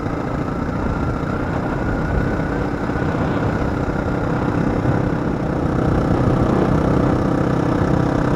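Motorcycle engine running while riding, a steady hum under an even rushing noise.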